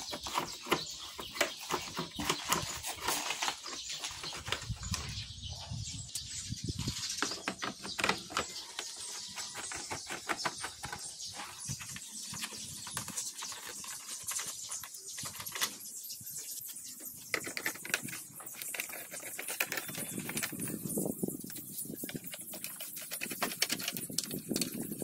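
Screwdriver working screws out of a scooter's plastic handlebar cover: many small irregular clicks and scrapes of metal tool on screw and plastic.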